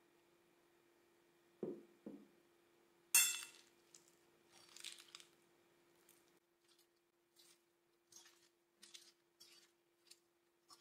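Metal forks clinking and scraping against a ceramic plate as a salad is tossed, a run of short irregular clinks. Before it come two soft knocks and one sharp clink about three seconds in, over a faint steady hum.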